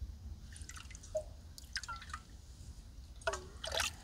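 Water plinking, bubbling and dripping as an insulated stainless steel bottle is held under water in a shallow spring pool to fill, with several short, scattered plinks and a louder cluster of drips near the end as the bottle is lifted out.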